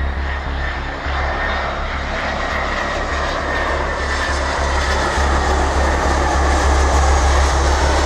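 Airbus A319's twin CFM56-5B turbofan engines on final approach, a steady jet engine noise that grows a little louder in the second half as the airliner comes closer.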